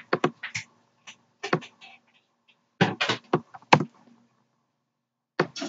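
Computer keyboard keystrokes and clicks, sharp and short, coming in a few quick clusters with short pauses between them.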